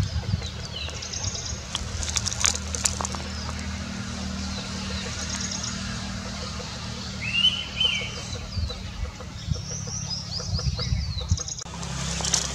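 Indian pitta giving a two-note whistle about halfway through, among high, thin chirps and short trills from small birds, over a low steady rumble.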